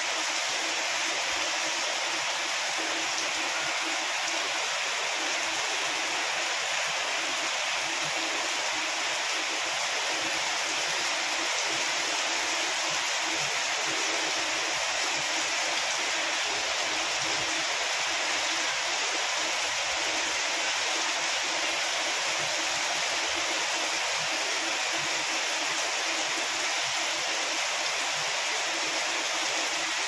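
Heavy tropical rain pouring steadily onto broad banana leaves and dense foliage: a constant, even hiss of downpour.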